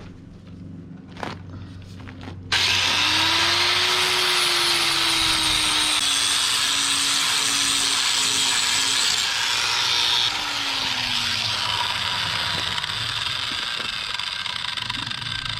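An angle grinder starts about two and a half seconds in, its motor tone rising as it spins up, and grinds steel without a break, smoothing down a weld. The grinding gets quieter about ten seconds in and carries on.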